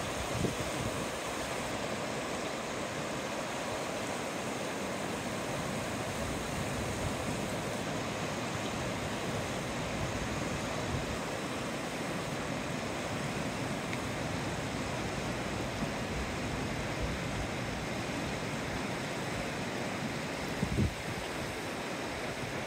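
The Nenana River, a wide glacier-fed river, rushing steadily over its stony bed. A brief low thump comes near the end.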